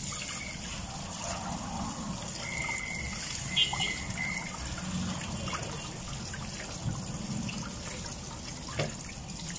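Tap water running steadily into a stainless steel pot full of water, splashing as hands rinse sliced milkfish in it.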